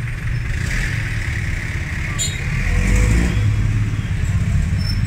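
Street traffic: motor vehicle engines running as a steady low rumble, growing louder about three seconds in as a vehicle passes close by.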